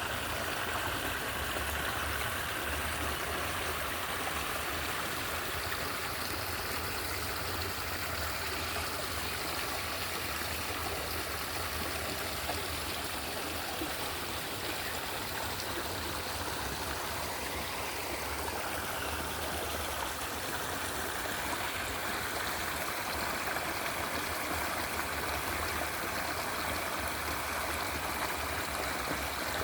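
Flowing water rushing and gurgling steadily, a continuous even stream of water sound with a low rumble underneath.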